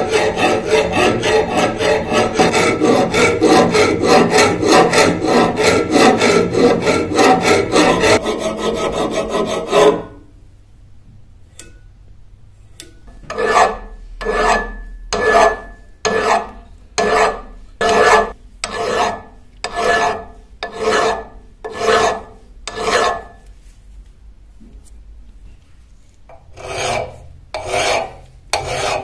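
Abrasive scraping strokes, such as filing, sanding or sharpening, worked back and forth on a knife under restoration. The first ten seconds or so are fast, continuous strokes. After a short quiet gap come slower single strokes about one a second, which break off briefly and then resume near the end.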